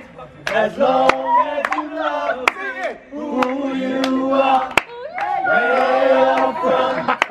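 A group of men singing together without instruments, several voices holding and bending notes at once, with sharp clicks scattered through.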